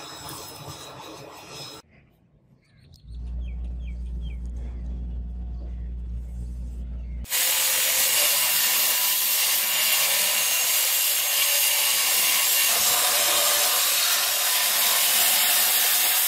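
Forge fire rushing briefly, then a bench-grinder belt sander's motor running with a low hum. About seven seconds in, the steel blade blank is pressed to the abrasive belt and a loud, steady grinding hiss takes over.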